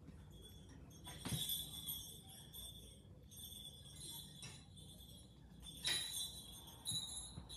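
Faint music with jingling sleigh bells, with a few louder shakes of the bells.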